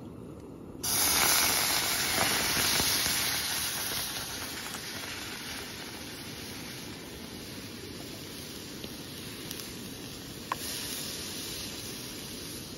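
Food or liquid going into a hot pan: a loud sizzle starts suddenly about a second in, then settles over a few seconds to a steady sizzle. A single sharp click comes near the end.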